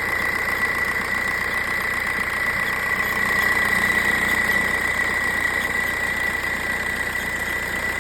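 Volkswagen Golf Mk4 engine running steadily with a constant high-pitched whine over it, a little louder about halfway through; this is the strange noise being asked about.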